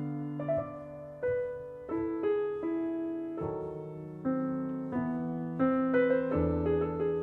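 Background piano music: slow, gentle notes, each struck and left to fade.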